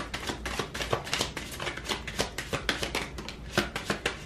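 A deck of affirmation cards being shuffled by hand: a rapid, irregular run of crisp card clicks and flicks.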